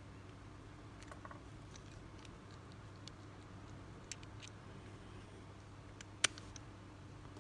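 Small metal clicks and ticks of steel pliers jaws closing on a fishing hook and line, scattered and faint, with one sharp click about six seconds in, over a faint steady hum.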